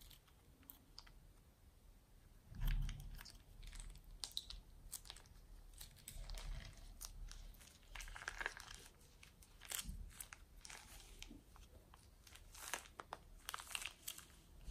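Plastic piping bag crinkling as it is squeezed, with irregular crackling and crunching as the foam beads inside are pushed out into sticky glue. There is a dull knock a little under three seconds in.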